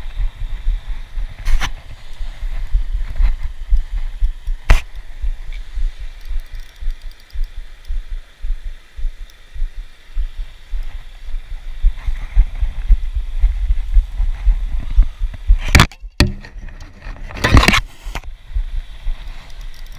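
Wind buffeting the microphone as a loud, uneven low rumble, with a few sharp knocks from handling the phone and fishing gear: one about a second and a half in, one near five seconds, and a cluster of stronger ones near the end.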